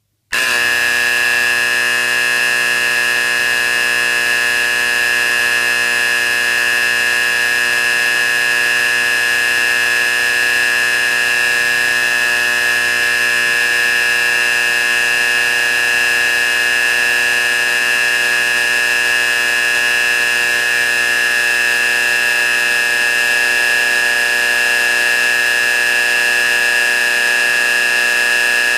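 Simplex 4048-R fire alarm horn powered from 12 V AC, sounding continuously. It switches on at once and holds a loud, steady, unbroken buzzing tone with no pulsing.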